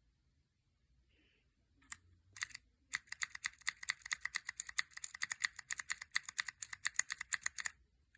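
Keycap keychain's mechanical key switch being pressed repeatedly: a few single clicks, then rapid clicking of about eight presses a second for nearly five seconds, stopping suddenly.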